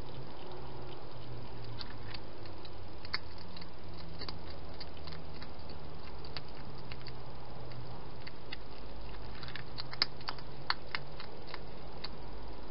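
A hedgehog crunching food, heard as faint, irregular small clicks with a denser run of sharper ones near the end, over a steady background hiss and low hum.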